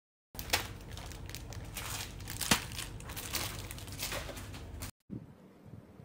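Plastic wrapping on packs of hanging dehumidifier bags crinkling and crackling as they are handled, with a couple of sharper crackles. It starts abruptly about a third of a second in and cuts off just before five seconds, after which fainter rustling follows.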